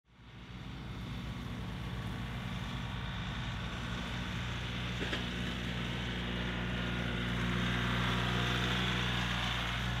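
Engine of farm machinery running steadily. It fades in over the first second, and its low hum grows slightly fuller about halfway through.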